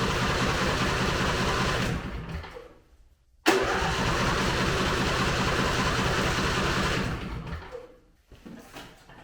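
A Husqvarna 22 hp riding mower's engine is cranked by its electric starter twice, each attempt lasting a few seconds and winding down without the engine catching. The mower is hard-starting with the choke on, which the owner traces to a choke cable out of adjustment.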